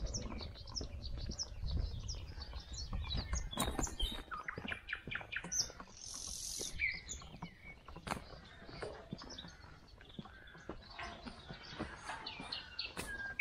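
Wild songbirds chirping and whistling, many short calls overlapping, with a low rumble under the first few seconds.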